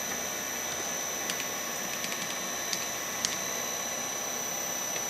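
Makino S56 machining center's spindle running steadily at a set speed with no cutting: a steady high-pitched whine over a background hum, with a few faint ticks.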